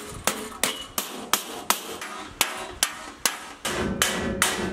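Steady hammer blows, about three a second, on sheet steel laid over a homemade metal brake, bending a bus window-delete panel by hand; some strikes ring briefly.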